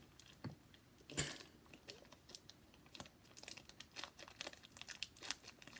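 Irregular soft crinkling and crackling from foam-bead slime being handled in a small plastic baggie, with a slightly louder cluster about a second in.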